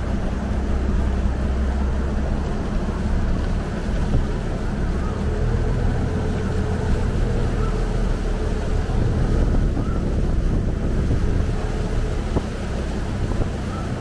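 Canal taxi boat's engine running steadily under way, with water rushing along the hull and wind buffeting the microphone.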